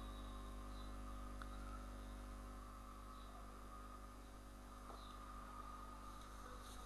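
Faint room tone: a steady low electrical hum with a light hiss, and a couple of very faint clicks.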